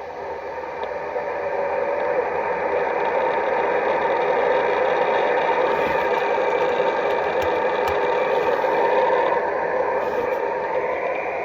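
Steady noise from a CB radio's speaker on channel 38 LSB: a weird, unexplained signal holding the channel, which the operator takes for someone dead-keying a transmitter. It swells up over the first couple of seconds and then holds steady.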